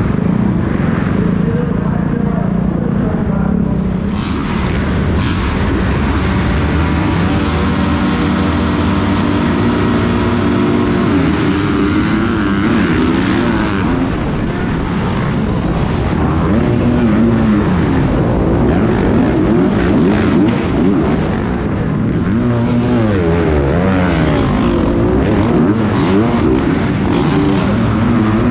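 Dirt bike engine heard from the rider's helmet camera, revving up and falling back again and again as the bike accelerates and shifts around the track. Other dirt bikes' engines mix in around it, over a rough rush of noise.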